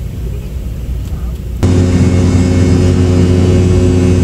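Airliner engine noise in the cabin: a low rumble, then about a second and a half in, a much louder steady drone with several fixed tones cuts in abruptly.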